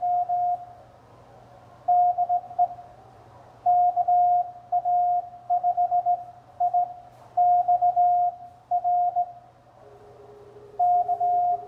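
Morse code (CW) from an amateur radio transceiver: one steady pure tone keyed on and off in groups of dots and dashes, with pauses between characters. About ten seconds in, a second, fainter Morse signal at a lower pitch joins in.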